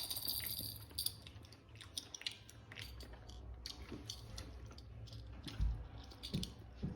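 Chewing and wet mouth sounds from eating a chicken wing soaked in very hot sauce: faint, scattered smacks and clicks.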